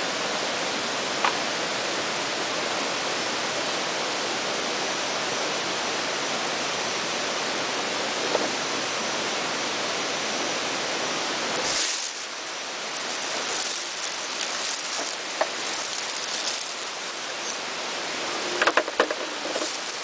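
Steady rushing of falling water, which drops abruptly about twelve seconds in to a quieter, uneven rush. A few sharp clicks come near the end.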